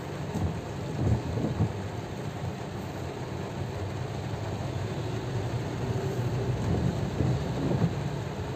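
Heavy rain on a car's roof and windscreen, heard from inside the cabin, over a low rumble with a few dull thumps.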